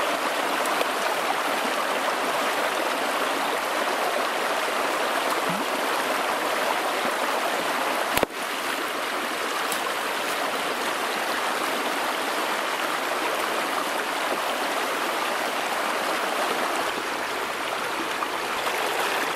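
A shallow rocky stream rushing steadily over stones and through a set net. A single sharp click comes about eight seconds in.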